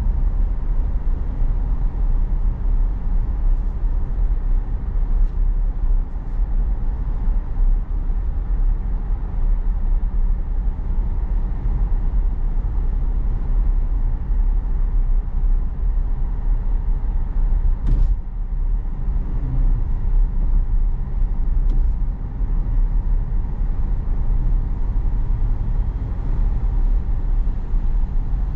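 Road and tyre noise inside a moving Tesla's cabin: a steady low rumble with no engine note, and a single click a little past halfway.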